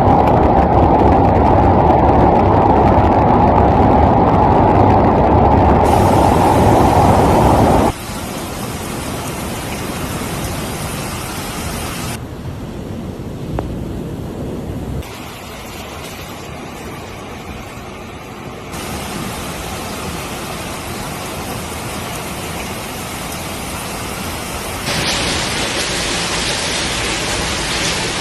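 Storm noise of typhoon wind and heavy rain: a steady noisy rush that is loudest and deepest in the first eight seconds, then quieter, shifting abruptly in tone several times.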